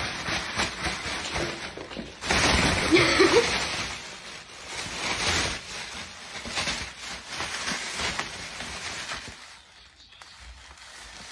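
Thin plastic carrier bag rustling and crinkling as a cat shifts about inside it, loudest from about two to four seconds in and dying down near the end.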